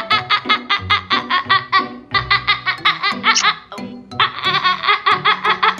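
A woman laughing hard in a long run of rapid, high-pitched ha-ha bursts, breaking off briefly a bit past the middle and then starting again, over background music.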